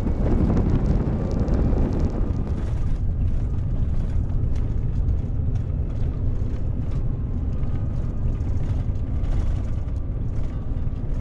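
A vehicle driving on a snow-covered road, with steady engine and road rumble and scattered light clicks.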